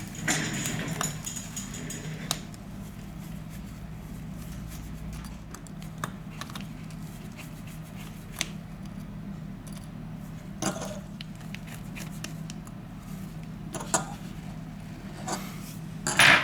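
Small metal repair tools clicking and scraping against a phone's parts in a string of scattered light taps, the loudest cluster near the end, over a steady low hum.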